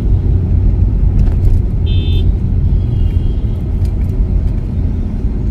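Steady low rumble of a car's engine and tyres, heard from inside the cabin while driving on a city street. A brief high-pitched tone sounds about two seconds in.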